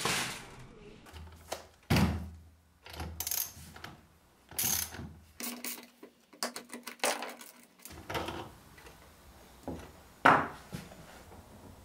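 Socket ratchet wrench clicking as it turns off the axle nuts of a skateboard's wheels. Knocks and clunks of the board, wheels and tools on a wooden workbench, with the loudest knock near the end.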